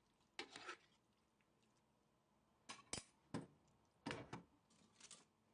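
Faint clinks and scrapes of a metal ladle against a stainless steel pot while stirring a thick chickpea and meat stew: a few brief, scattered knocks with near silence between them.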